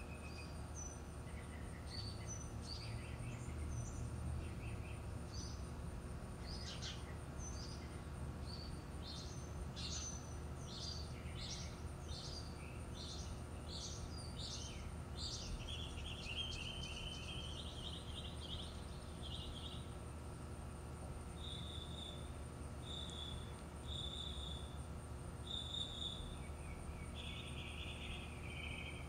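Several birds singing and chirping, with a quick run of short notes in the first half and a clear note repeated about once a second later on, over a steady high insect trill and a low background rumble.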